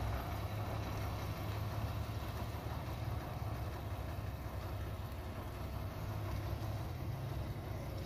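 Heavy construction-machine diesel engine running steadily, a low even hum that does not rise or fall.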